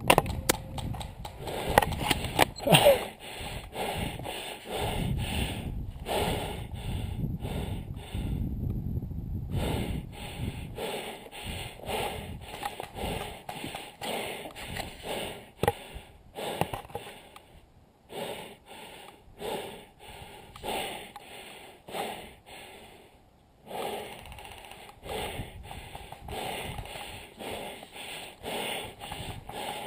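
A person breathing hard and fast close to the microphone, about two breaths a second, as if winded. A few sharp clacks come in the first three seconds, and one more around the middle.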